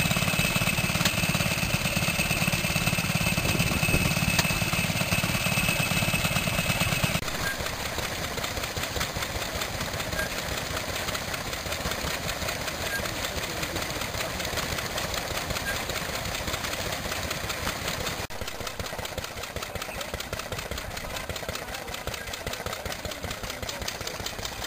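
Vintage stationary engines running with a steady rapid knocking beat. First comes a small engine-driven generator set with a strong low hum and a steady high whine. After a cut about seven seconds in, a green single-cylinder engine on a wheeled trolley is heard. After another cut near eighteen seconds, engines are heard somewhat more quietly.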